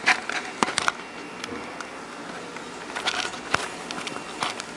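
Scattered light clicks and rustles at irregular intervals, the handling noise of hands and camera working among the amplifier's wiring; no steady sound.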